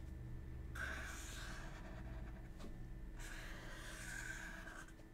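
A marker pen scratching on paper as it draws long curved lines, in two soft strokes: one about a second in and a longer one a little past the three-second mark.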